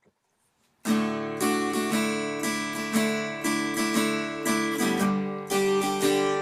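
Acoustic guitar playing a strummed chord intro, coming in about a second in with a steady rhythm of ringing chords.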